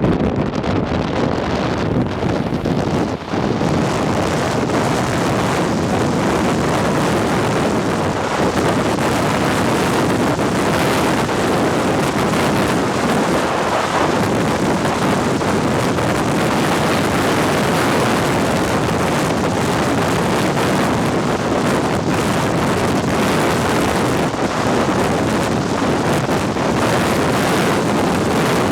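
Highway traffic on Interstate 10: a steady wash of tyre and engine noise from vehicles passing at speed, with wind rumbling on the microphone.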